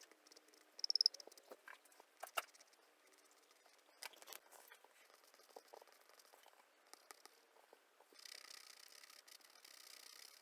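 Pastels scratching and tapping on pastel board, faint: scattered sharp clicks, a quick run of loud ticks about a second in, and a steady scratching of shading strokes over the last two seconds.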